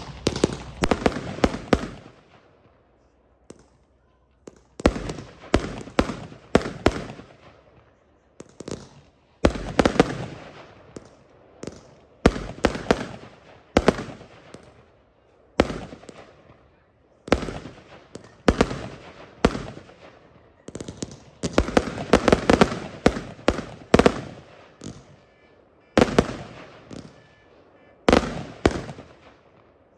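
A Winda Pulse Pounder 200-gram, 50-shot consumer fireworks cake firing loud reports. The shots come in quick volleys of several sharp bangs, with short pauses between volleys, and the cake finishes just before the end.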